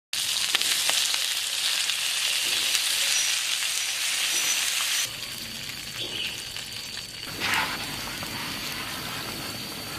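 Chicken wings sizzling loudly in hot oil in a frying pan as Coca-Cola is poured in. About halfway through the sizzle drops suddenly to a quieter, steady bubbling as the wings simmer in the cola.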